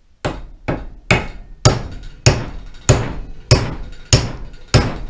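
Hammer blows on the head of a double-bit axe held upright, driving the head down onto its wooden handle. There are nine even strikes, a little under two a second, and each rings briefly.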